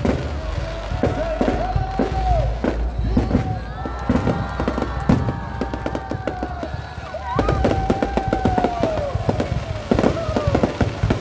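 Fireworks going off in a dense run of bangs and crackles, one report after another with no pause.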